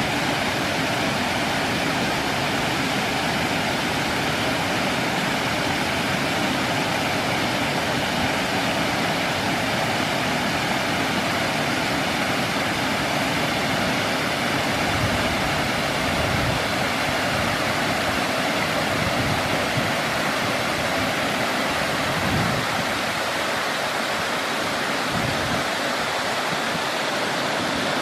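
Water pouring over a low concrete weir on a river and splashing into the shallow pool below: a steady rushing of falling water.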